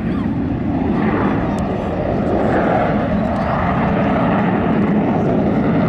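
Jet noise from the Avro Vulcan bomber's four Rolls-Royce Olympus turbojets on a fly past: a loud, steady rush that grows slightly louder.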